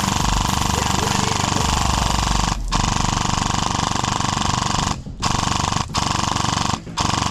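Custom airsoft M249 firing long full-auto bursts as covering fire: a fast, even chatter, broken by brief pauses about two and a half seconds in and around five, six and seven seconds.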